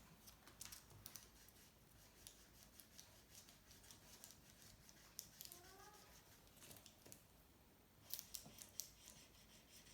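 Faint scratching and tapping of a felt-tip marker colouring on paper, in short irregular strokes, a little busier near the end.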